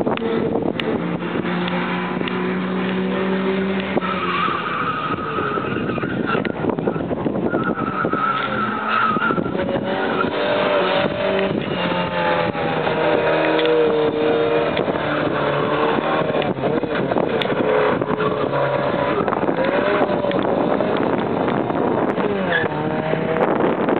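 Rally car engine revving hard, its pitch climbing and dropping repeatedly through gear changes as the car approaches and passes close, with tyres squealing and skidding in the corners.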